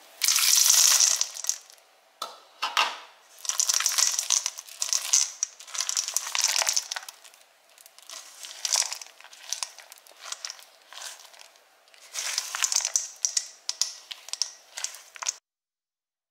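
Silicone spatula stirring stiff cookie dough in a stainless steel bowl, folding in chocolate chips: a run of squishing, scraping strokes against the bowl at an uneven pace. The sound cuts off suddenly near the end.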